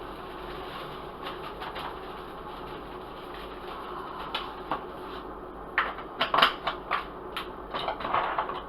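Lemon pepper being shaken from a seasoning shaker: quick rattling taps, scattered at first and coming thick and loud in the last few seconds, over a steady background hum.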